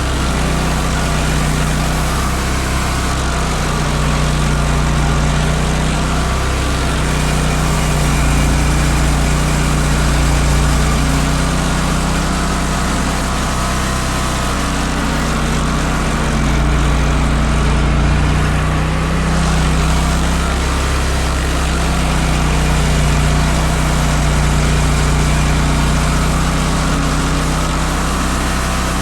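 Vermeer stump grinder running steadily while its cutter wheel grinds down a tree stump, the engine note holding even with slow swells in loudness.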